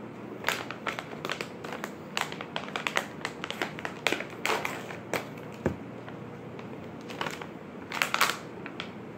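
A plastic jerky pouch crinkling and crackling as it is torn and pulled open by hand, in an uneven run of sharp crackles with louder stretches about four seconds in and near the end.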